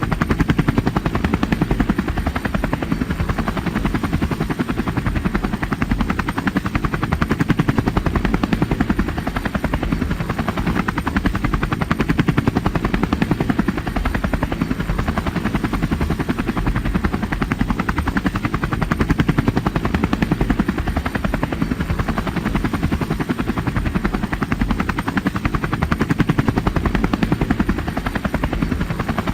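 Helicopter in flight: the rotor blades chop in a rapid, steady beat over the engine's drone, with no change in pitch or loudness.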